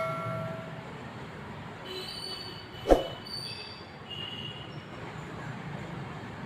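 Squirrel giving several short, high squeaks, in two groups about two to four and a half seconds in and another near the end. A single sharp knock comes about three seconds in, and a metallic ring fades out at the start.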